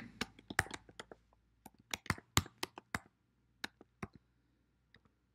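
Typing on a computer keyboard: a run of irregular keystroke clicks in short bursts, which stop about a second before the end.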